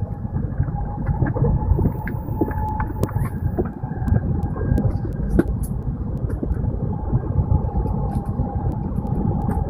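Cabin noise of an N700-series Shinkansen running: a steady low rumble with a faint steady whine and occasional light clicks.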